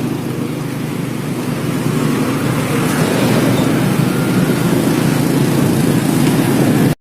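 Bus engine with a 'ngorok' (snoring) exhaust, running with a loud, steady, deep drone.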